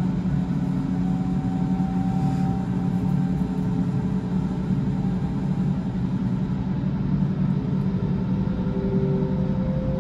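Berlin S-Bahn class 481 electric multiple unit moving past the platform: a steady rumble of wheels and running gear, with faint whining tones from the traction equipment, one of them rising near the end.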